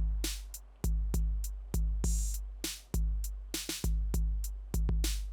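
Background music with a programmed drum-machine beat: a deep kick drum roughly once a second, with sharp hi-hat and snare hits between.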